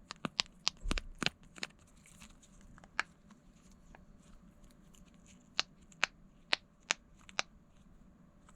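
Mini silicone push-pop fidget bubbles being pressed, each giving a sharp little pop: a quick flurry of pops at the start, a single one a few seconds in, then five more about half a second apart.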